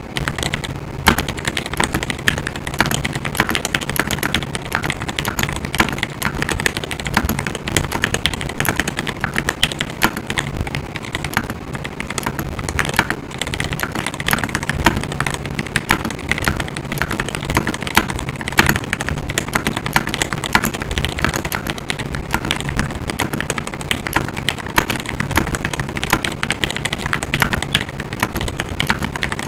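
Fast, continuous typing on a Glorious GMMK Pro aluminium mechanical keyboard with Everglide Aqua King linear switches: a dense, even stream of key clacks with no breaks.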